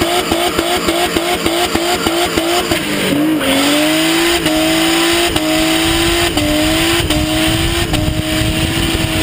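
Car doing a burnout, its rear tyres squealing. The squeal pulses about three times a second for the first three seconds, then settles into a long, steady squeal that jumps a little in pitch every second or so, over the rumble of the engine.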